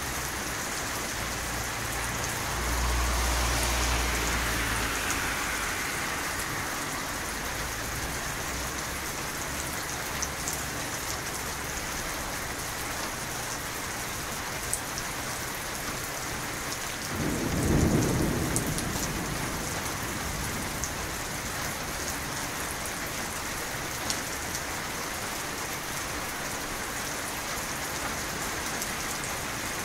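Steady rain falling, with a few scattered drip ticks. A low roll of thunder rumbles about three seconds in, and a louder thunderclap comes about eighteen seconds in.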